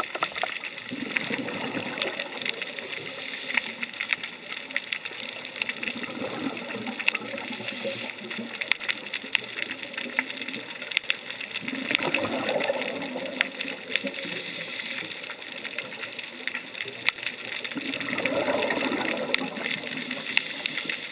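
Underwater sound picked up through a diving camera's housing: a steady dense crackle of sharp clicks, with the diver's exhaled regulator bubbles rushing up three times, roughly six seconds apart.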